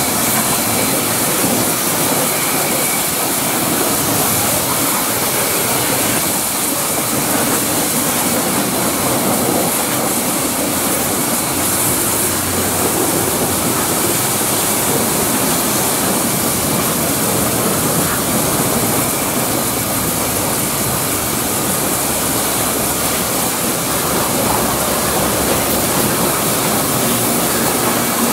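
High-pressure washer jet spraying a truck's tyres and wheel rims, and near the end its side panels: a loud, steady hiss of water spray and splatter.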